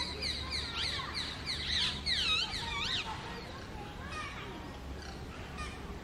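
Rose-ringed parakeets calling: a quick run of shrill calls that sweep up and down in pitch, loudest in the first half, then softer chattering calls.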